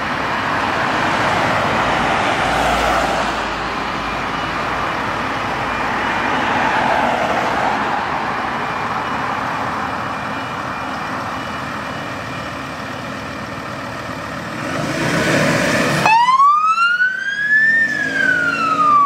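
Electronic siren on a Ford Ranger fire-brigade field command vehicle, sounding a slow wail that rises and falls. About sixteen seconds in it switches abruptly to a cleaner, louder wail tone that climbs and then falls away.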